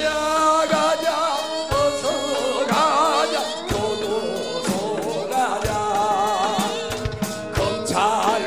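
Live Korean folk-style protest song over a PA: a voice singing with wide vibrato, accompanied by gayageum zither and drum strokes.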